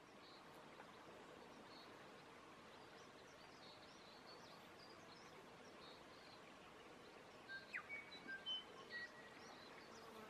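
Quiet outdoor ambience: a faint steady hiss with light high chirps throughout, and a few short whistled notes about eight seconds in.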